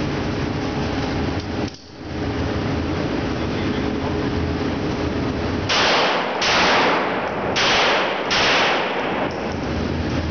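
Four handgun shots fired in two pairs, double taps, each ringing on in a long echo off the walls of an indoor range. They come over a steady background noise.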